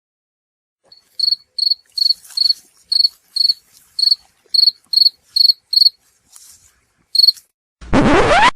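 Stock cricket-chirping sound effect, the kind used in editing to mark an awkward silence: about a dozen short, high chirps, a little over two a second, then one lone chirp. Near the end a short, loud rising whoosh starts.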